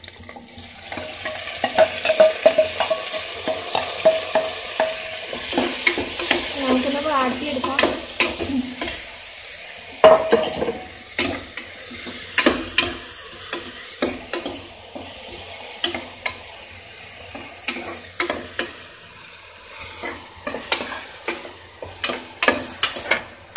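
Chopped tomatoes sizzling in hot oil with onions and green chillies in a pressure cooker, being stirred with a spatula that clicks and scrapes against the metal pot. The sizzle is strongest for the first several seconds after the tomatoes go in, then eases while the spatula strikes continue.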